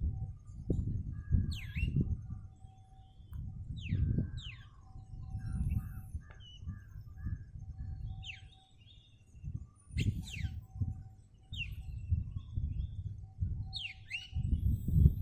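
Wild birds calling, mainly sharp whistles that sweep steeply downward, repeated every couple of seconds, with short chirps in between. Under them runs a low rumble that swells and fades in gusts.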